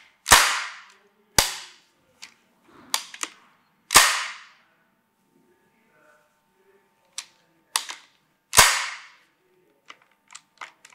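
Experimental Furrer MP19 toggle-action submachine gun being hand-cycled and dry-fired: four loud, sharp metal clacks with short ringing tails, and lighter clicks between them. The fire selector is slid to the rear, and the action appears to be firing automatically.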